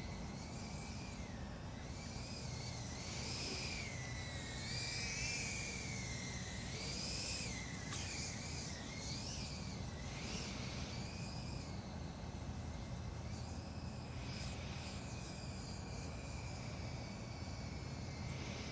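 FPV quadcopter's motors and propellers whining, the pitch rising and falling as the throttle changes, louder for a few seconds early in the flight run.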